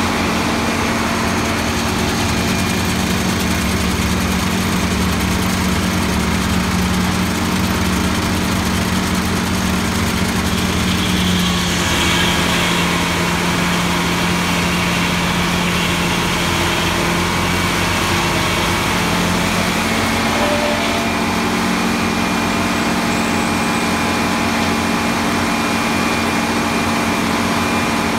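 Circular sawmill's engine running steadily, a constant mechanical hum. A somewhat higher tone comes in between about 11 and 20 seconds in.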